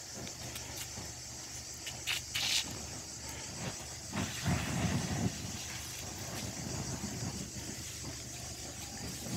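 Steady hiss of water from a fire hose spraying onto smouldering embers and ash on a forest floor, with louder bursts of noise about two seconds in and a low rumbling stretch around the middle.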